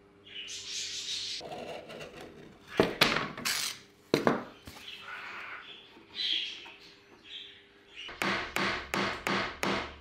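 Utility knife scraping as it scores a thin black sheet, then a few loud sharp cracks, and near the end a run of about five quick, evenly spaced knocks on the wooden nest box as the panel is fitted.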